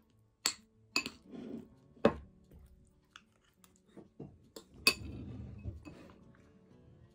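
Metal spoon clinking and scraping against a ceramic plate while eating curry rice: several sharp clinks, the loudest about half a second, one, two and five seconds in, with softer scraping between.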